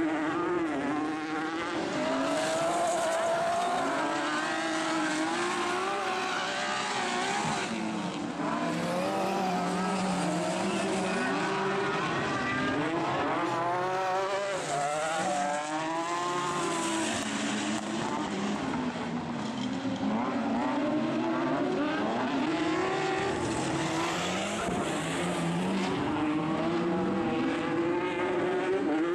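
Several autocross Super Buggies racing on a dirt track, their engines revving hard and rising and falling in pitch as they accelerate, back off and pass one another.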